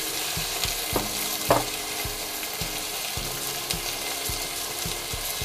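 Meat and vegetables sizzling and crackling in the hot bowl of a REDMOND multicooker set to frying, with a couple of light knocks about a second and a second and a half in.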